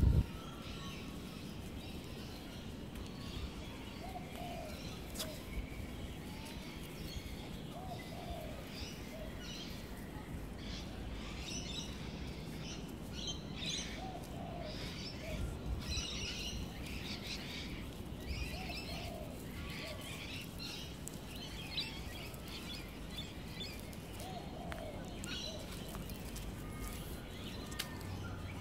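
Wild birds chirping and twittering, with a short, lower call recurring every few seconds beneath the higher chirps.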